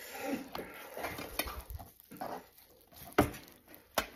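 A knife and gloved hands working a stewed leg of lamb on an enamel plate: several sharp clicks of the blade knocking against the plate, the loudest about three seconds in, between softer sounds of meat being pulled apart.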